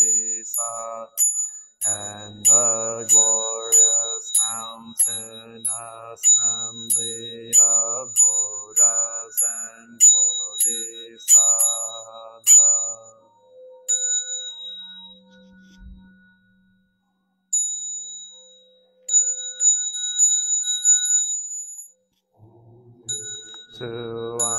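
Buddhist liturgical chanting with a steady sharp tick about twice a second. The chanting stops about halfway through, leaving a pause with one soft low knock and faint high ringing tones. Chanting starts again near the end.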